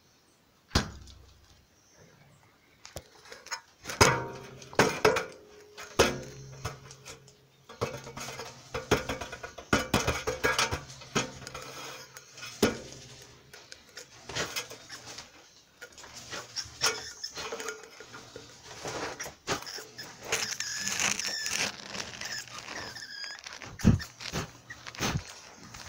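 A rodent caught in a perforated sheet-metal cage trap moving about inside it, giving irregular clattering, knocking and scraping on the metal. There is a stretch of high squeaking a little after twenty seconds in.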